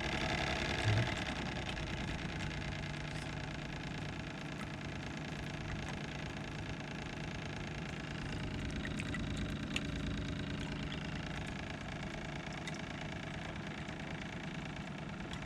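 Small RO booster pump running steadily with an even hum, not switching on and off: with a pressure tank on the line, the high-pressure switch sees a constant pressure and the pump runs continuously instead of short-cycling.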